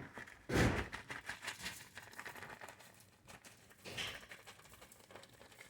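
Rustling and handling noises: a short rustle about half a second in, scattered light ticks, and a softer rustle about four seconds in, as the brown sugar is picked up and opened.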